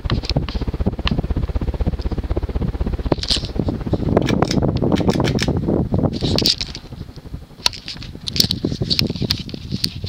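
1989 Hunter Custom Home 42-inch ceiling fan running at speed, its blades pushing gusts of air across the microphone as a low rumble, with scattered light clicks throughout. The rumble eases about six and a half seconds in.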